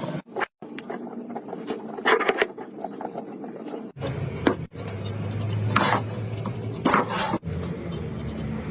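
Hand tool rubbing and rasping on wood in several short strokes, with abrupt cuts between clips and a low steady hum under the later ones.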